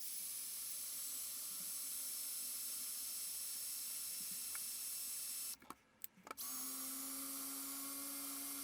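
Small power drill running steadily with a 3 mm bit, drilling a hole into a screw. It stops for under a second about five and a half seconds in, then starts again with a steady whine.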